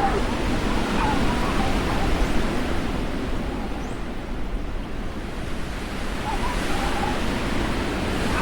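Steady rushing ambience noise of a sound-effect track, with faint wavering tones about a second in and again near the end.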